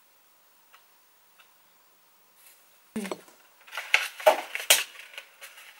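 Small hard plastic box being handled and opened: a sharp click about three seconds in, then a quick run of loud plastic clicks and rattles.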